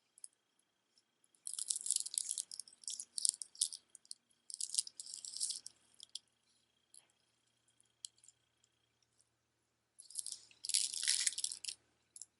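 Strung beads of jewelry being handled, clicking and rattling against each other in three bursts of dense clicks.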